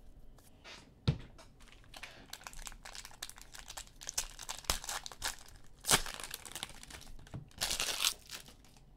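Hands tearing open and crinkling the wrapper of a football trading-card pack, a dense run of crackling with a loud snap about six seconds in and another crinkly burst near the end. A sharp tap about a second in, as a stack of cards is squared.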